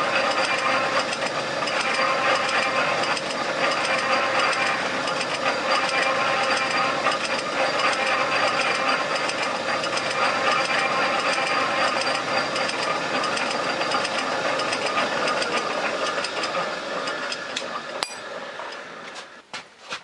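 Small metal lathe running steadily with a machine whine, then spinning down about three-quarters of the way through, with a sharp click and a few light knocks as it stops.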